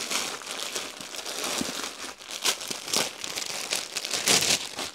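Crinkling and rustling of packed suits, in their plastic wrapping, being handled and turned over. The crackles are irregular, with the loudest burst about four seconds in.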